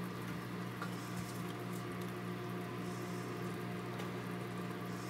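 Steady low electrical hum with a faint wet bubbling texture, and a few soft clicks and squishes as tongs lift beef rouladen out of a slow cooker.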